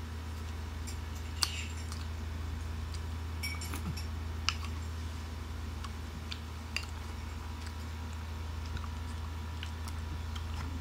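Metal spoon clinking and scraping against a bowl of creamy fruit salad, with small wet clicks of chewing; a few sharp clicks, the loudest about a second and a half in, over a steady low hum.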